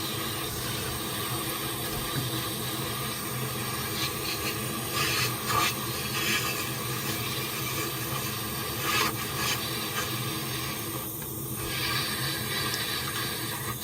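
Soldering torch flame hissing steadily while heating a copper pipe joint, with a few brief louder sputters about five and nine seconds in.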